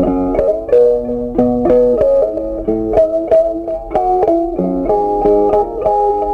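Instrumental background music: a quick melody of short notes over held lower notes.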